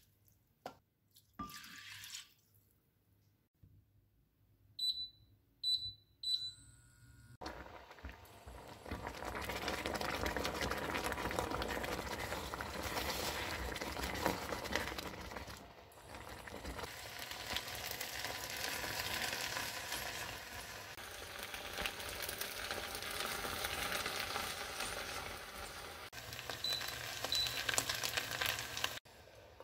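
Induction cooktop touch controls beeping three times in quick succession, then rice cooking hard in a stainless steel pot, a steady sizzling hiss with crackles as it is stirred with a silicone spatula. Two more beeps near the end as the hob is turned down to low heat, and the cooking sound cuts off just after.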